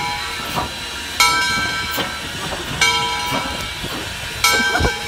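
Southern Railway 630, a 2-8-0 Consolidation steam locomotive, chuffing slowly: a sharp hissing puff of steam about every one and a half seconds, each fading before the next.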